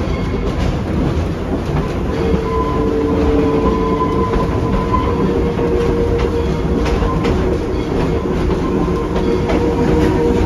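Narrow-gauge passenger train rolling along the track, heard from on board: a steady rumble with scattered clicks from the wheels and rail joints. A faint steady tone rises over it from about two seconds in.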